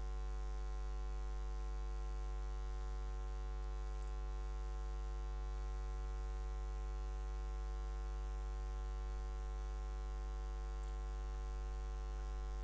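Steady electrical mains hum: a constant low drone with a ladder of overtones above it, unchanging throughout.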